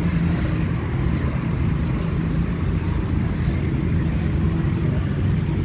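Steady low rumble of distant road traffic with a faint hum.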